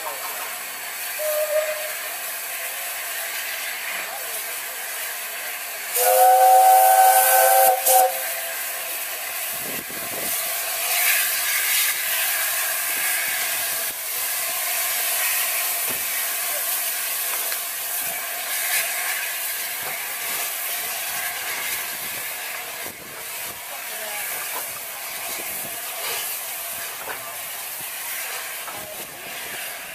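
Steam locomotive Union of South Africa, an LNER A4 Pacific, hissing steam steadily. About six seconds in it sounds its chime whistle once, a chord of several notes held for about two seconds.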